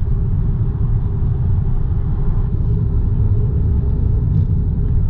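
Steady road and engine rumble inside a Citroën car's cabin while cruising on a motorway.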